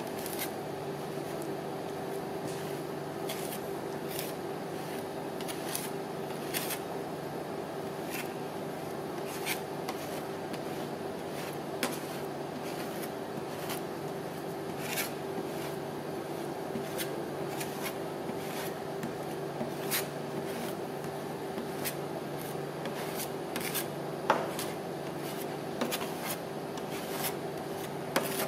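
Metal spatula scraping and tapping on the stainless-steel cold plate of a rolled ice cream machine as the ice cream is spread into a thin sheet: irregular sharp clicks and rasping strokes over a steady hum from the machine's refrigeration unit.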